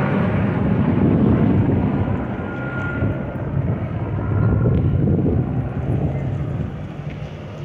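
Eurocopter AS350 B3 helicopter flying away after takeoff: a steady rotor and single-turbine engine sound that grows fainter in the last second or so as it moves off.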